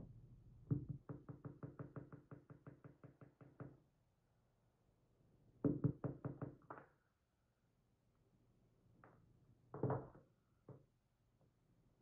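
Light, rapid knocking of the Lips Octro's metal cylinder housing tapped against the bench: a run of about fifteen knocks at about five a second, a shorter run of five a couple of seconds later, then a few scattered knocks. It is the sound of shaking pins and springs out of their chambers during disassembly.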